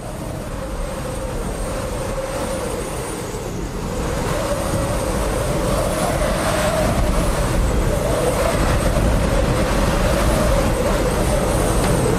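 A steady rumbling, rushing noise that swells slowly louder, with a wavering hum running through it, like a train or traffic soundscape laid in as the opening of the dance soundtrack.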